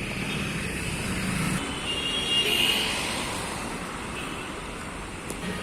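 Road traffic: a steady noisy rumble of passing vehicles, with a brief high tone about two seconds in.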